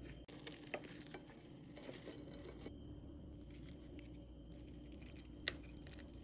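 Faint small crackles of a flaky, layered porotta being torn apart by hand and pressed into beef curry, with a single sharp click about five and a half seconds in.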